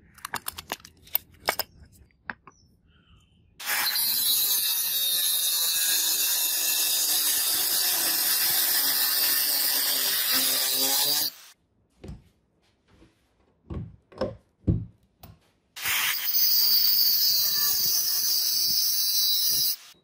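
Angle grinder with a thin cut-off disc cutting through flat steel plate along a marked knife outline: two long steady cuts, about seven seconds and then about four seconds long. A few clicks come at the start, and a handful of short knocks fall between the two cuts.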